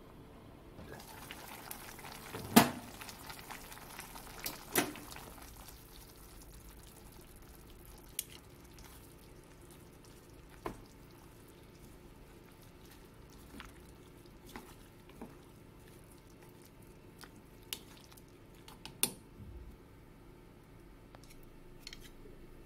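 A nikujaga stew simmering in a stainless steel pot, bubbling quietly, while the glass lid and wooden chopsticks knock and tap against the pot as it is uncovered and stirred. The loudest knock comes about two and a half seconds in, with scattered lighter taps after it.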